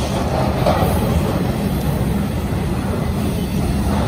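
Freight train flatcars rolling past: a steady rumble of steel wheels on the rails.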